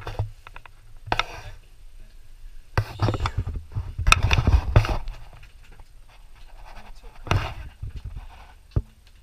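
Dinner-table noise from a small group: laughter and breathy, indistinct voices, loudest in the middle, with plates and serving utensils clinking now and then.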